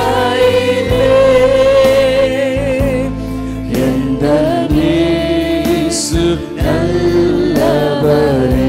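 Tamil Christian worship song: singing in long held, wavering notes over a steady instrumental accompaniment with regular drum strokes.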